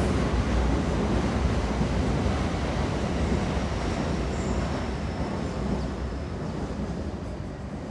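Train running on rails: a steady, dense rumble heaviest in the low end, with a faint high whine in the middle, slowly fading toward the end.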